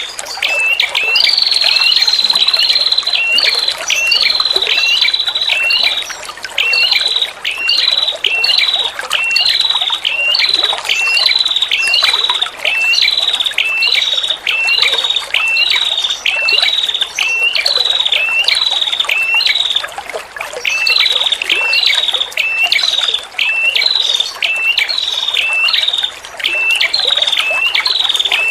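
Female prenjak kepala merah calling over and over: short, high, hooked notes about one and a half a second, with brief pauses every few seconds, over the steady trickle of running water.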